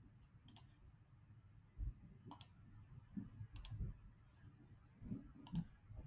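Faint computer mouse clicks, four of them spaced one to two seconds apart, each a quick double click of press and release, with soft low thumps in between.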